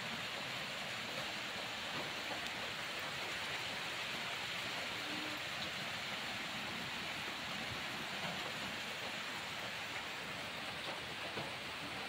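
Steady rain falling, an even hiss without letup.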